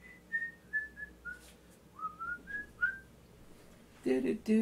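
A man whistling a tune off-camera, a run of single clear notes, several sliding up in pitch, in two short phrases. Near the end a voice is heard.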